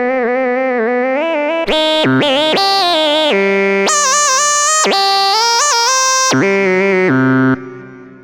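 UVI Cameo CZ software synthesizer, modelled on Casio's CZ phase-distortion synths, playing a lead line with a wavering, vibrato-like pitch. Bright note changes then run over low bass notes. The notes stop about 7.5 s in and a short tail fades out.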